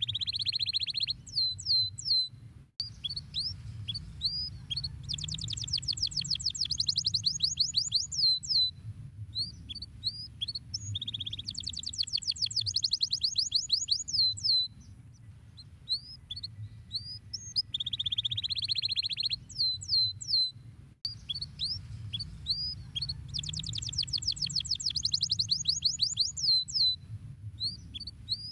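Domestic canary singing. Phrases of fast rising chirp trills at about ten notes a second alternate with buzzy rolls and single chirps, and the song pattern repeats every several seconds.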